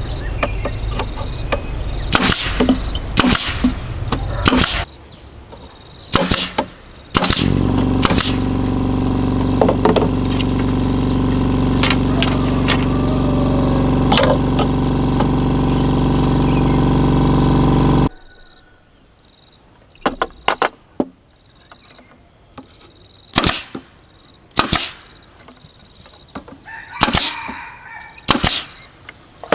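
Pneumatic brad nailer firing nails into bamboo poles, over a dozen sharp snaps a second or several apart. For the first two-thirds a small electric air compressor runs under them with a steady hum, then cuts off suddenly, leaving only the shots.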